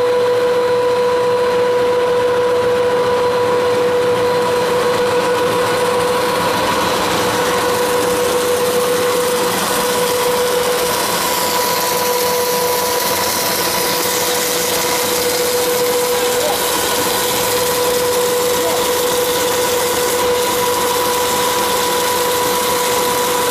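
Machinery of a textured soy protein extrusion line running: a steady, loud mechanical hum with a constant mid-pitched whine from the motors.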